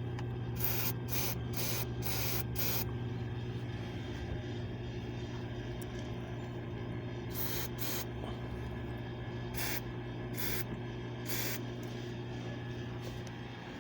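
Short hissing squirts from an aerosol can of belt dressing, sprayed through a straw nozzle onto the engine's drive-belt pulleys: five quick bursts in the first three seconds, then single bursts every second or two. A steady low hum runs underneath.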